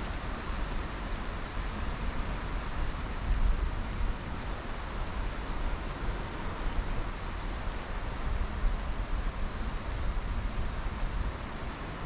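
Wind buffeting the microphone in uneven gusts, over a steady hiss of surf.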